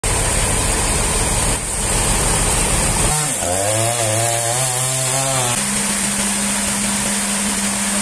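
Sawmill machine noise cut together: about three seconds of loud engine noise, then a two-stroke petrol chainsaw cutting into a trembesi log, its pitch wavering under load, then a steady machine hum.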